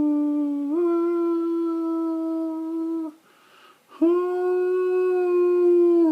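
A person humming long, steady held notes, the pitch stepping up about a second in; the humming breaks off for about a second around the middle, then resumes with another long held note.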